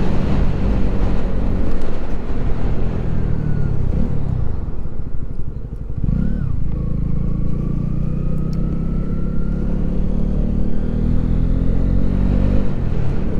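Honda CB125R's single-cylinder four-stroke engine, heard from the rider's seat with wind noise on the microphone. The revs fall as the bike slows about four seconds in, rise and fall once quickly near six seconds, then climb steadily as it pulls away.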